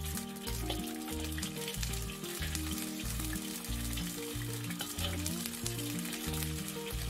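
Hot oil sizzling and crackling in a wok as it is ladled over a whole bluethroat wrasse to firm its skin. A ladle knocks against the wok at times, and background music with low sustained notes plays throughout.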